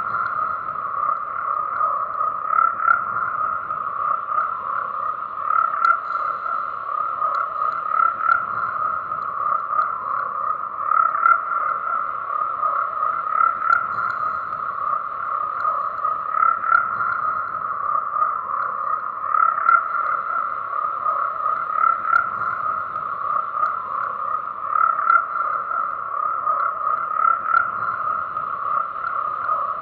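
A chorus of frogs croaking continuously, a dense steady calling that swells about every three seconds.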